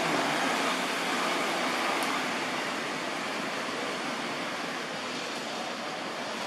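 Steady rushing outdoor background noise with no distinct events, slightly louder in the first two seconds.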